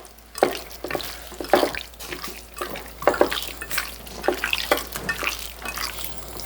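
Raw boneless chicken being mixed and massaged by hand in its marinade of olive oil, lemon juice, salt, chili flakes and pepper, making irregular soft wet clicks.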